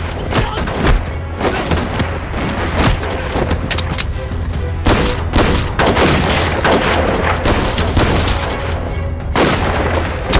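Battle-scene gunfire: repeated shots and heavy booms in quick volleys, over dramatic background music.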